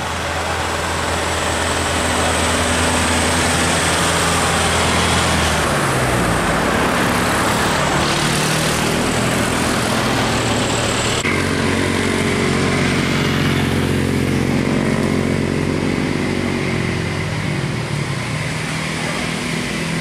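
Road vehicles driving by: an Isuzu minibus's engine running as it passes, with motorcycles going by. About eleven seconds in, the sound changes abruptly to the steady hum of a large bus engine approaching.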